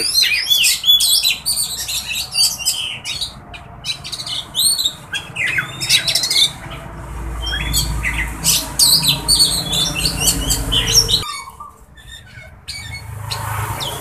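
Caged Oriental magpie-robins (kacer) calling, a dense run of quick, high chirps and harsh squawks overlapping one another. A low steady rumble sits under the calls in the middle and cuts off suddenly about eleven seconds in.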